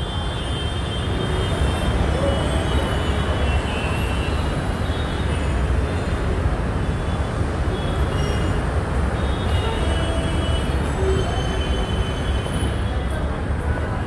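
Steady rumble of nearby road traffic, an even wash of engine and tyre noise with no single vehicle standing out.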